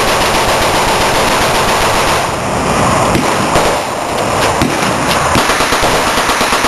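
Dense, continuous gunfire from many automatic weapons firing at once, the shots overlapping into an unbroken crackle.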